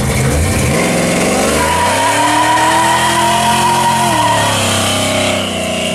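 1969 Plymouth Road Runner's V8 accelerating hard away, its pitch rising and then holding high while the tires squeal. The squeal stops and the revs drop about four seconds in at a gear change, then the engine keeps pulling.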